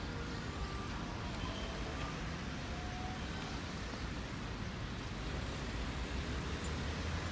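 Steady low rumble of road traffic, with a few faint brief tones over it.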